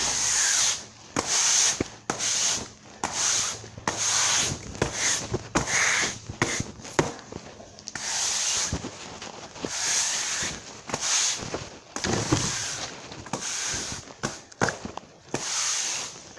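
Broom sweeping a concrete shop floor: a run of scraping strokes, about one to two a second.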